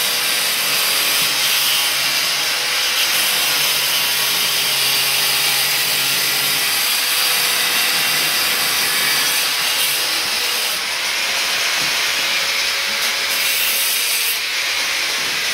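A steel trowel scrapes and churns thick ceramic tile adhesive in a plastic mixing tub, over a steady loud hiss.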